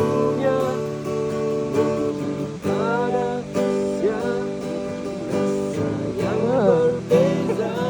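Music: a strummed acoustic guitar, with a singing voice carrying a melody from about three seconds in.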